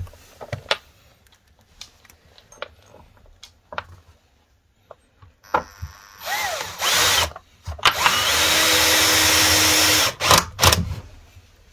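Cordless drill-driver screwing a metal hook into a wooden beam: a short burst of the motor about six seconds in, then a steady run of about two seconds. Scattered clicks and knocks of handling come before it, and a few sharp knocks just after.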